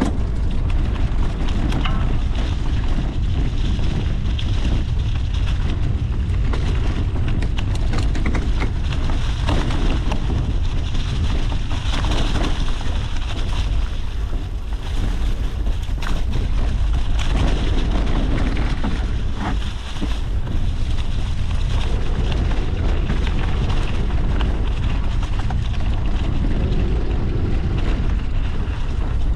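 Steady wind buffeting the microphone of a camera moving along a rough dirt trail, with many small knocks and rattles from the bumpy ground.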